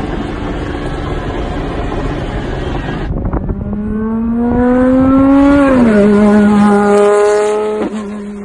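Maserati MC12 Corsa's naturally aspirated V12 engine under way, first heard from inside the cabin. After a cut it is heard from outside as the car drives across the tarmac: one loud engine note rises steadily for about two seconds, drops sharply and then holds level.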